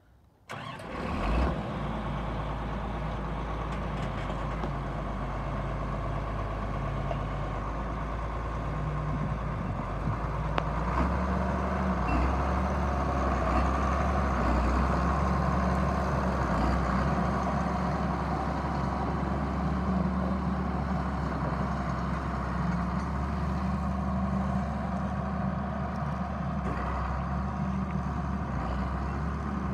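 1979 John Deere tractor's diesel engine running steadily as the tractor drives past, with a low hum that grows a little louder about ten seconds in. A brief louder burst about a second in is the loudest moment.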